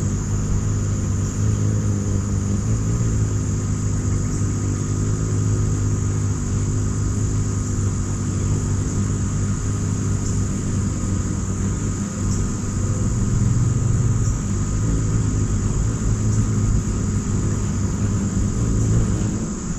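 Ruby-throated hummingbird hovering at close range, its wingbeats making a steady low hum.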